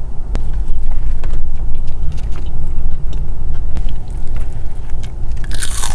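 Close-miked eating: scattered crunches and mouth clicks from someone biting into and chewing a fried chicken sandwich, over a loud steady low rumble, with a louder hissing crunch near the end.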